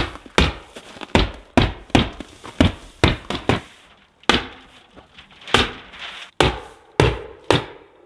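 A hammer striking, fastening Tyvek housewrap to the cabin wall: sharp, repeated blows about two a second, with a short pause near the middle.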